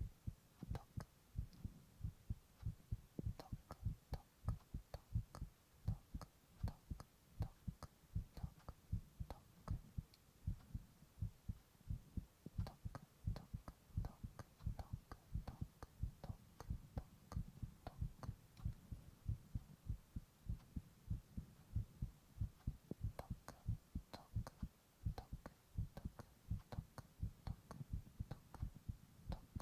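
A man's heartbeat recorded up close: a steady, regular rhythm of low thumps.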